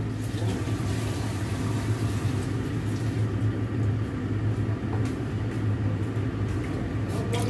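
Steady low electrical hum of an induction cooktop and its cooling fan running under a pot of vegetable broth as it heats.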